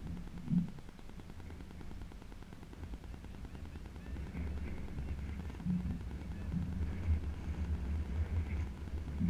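Wind buffeting the camera microphone: a low, uneven rumble that gets stronger about four seconds in.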